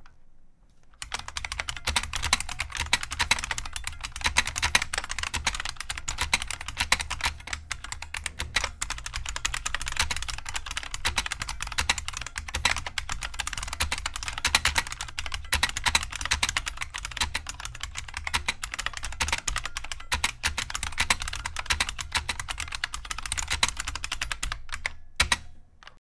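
Fast touch typing on an IBM Wheelwriter keyboard's buckling-spring switches: a dense, unbroken run of sharp clicks. It starts about a second in and stops just before the end.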